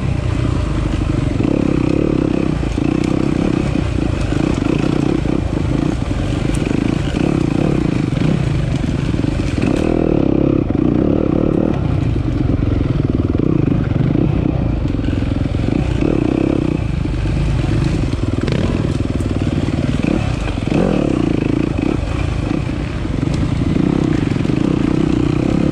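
Single-cylinder enduro dirt bike engine running under load, its revs rising and falling with the throttle, with scattered short clattering knocks over rough ground.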